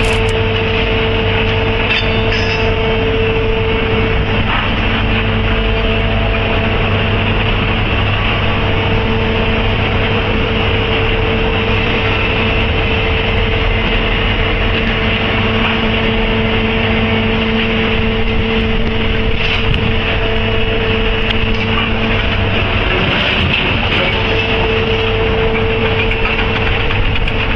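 Steady, loud running noise of heavy machinery, with a constant low hum and a held mid-pitched tone that briefly drops out and returns a few times.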